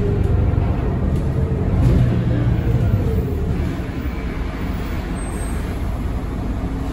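2001 Volvo B9M city bus heard from inside the cabin, its B9M-55 diesel engine and ZF Ecomat automatic gearbox running under way with a heavy low rumble. The engine note dips slightly around two seconds in, and the sound settles quieter from about four seconds in.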